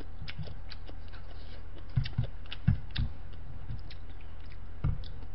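Close-miked eating sounds: chewing, with small clicks and taps of chopsticks against a stainless steel bowl as cold noodles are stirred, and a few short soft thumps.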